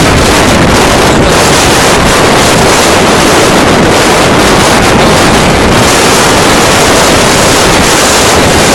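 Strong blizzard wind blasting straight into the microphone: loud, steady rushing wind noise.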